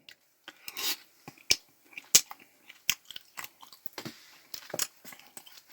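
A person eating close to the microphone: irregular chewing with sharp mouth clicks and soft smacking.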